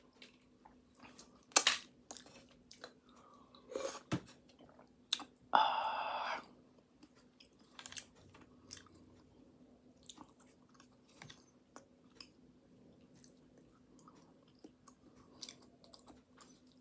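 Close-miked chewing and mouth clicks of a person eating pastry, with a few louder bites and one brief louder pitched mouth sound about five and a half seconds in. A faint steady hum runs underneath.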